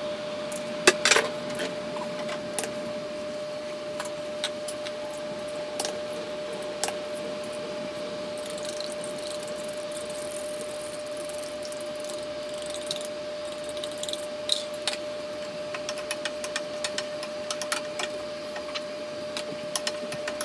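Kitchen cooking sounds: eggs beaten in a plastic bowl and then stirred in a nonstick frying pan with a wooden spatula, giving scattered clicks, taps and scrapes over a steady hum.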